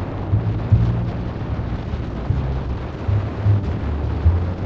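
Harley-Davidson V-twin motorcycle running at road speed, heard under heavy wind rumble on the microphone and road noise.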